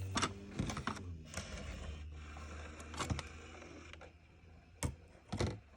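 Camcorder's 8mm tape-loading mechanism running with a low motor hum that fades out over the first few seconds, along with a series of sharp plastic clicks and knocks as the cassette is seated and the unit is handled.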